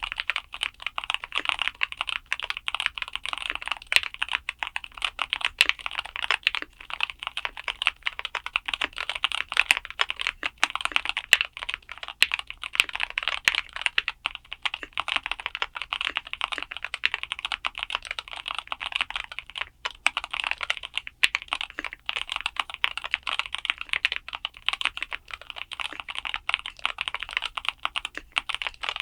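Fast, continuous typing on a Keychron K2 HE Hall effect keyboard with Gateron Double-Rail magnetic switches, a dense run of clacky keystrokes.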